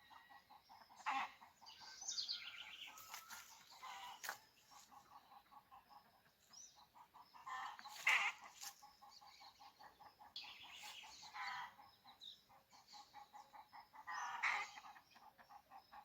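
Birds and chickens calling, with several louder calls spread through and a fast, even pulsing call running underneath at about five beats a second.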